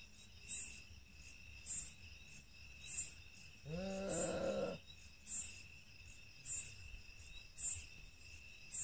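Crickets and other night insects: a steady high trill under a faint chirp that repeats a little more than once a second. About four seconds in, a short low wavering vocal sound lasts about a second.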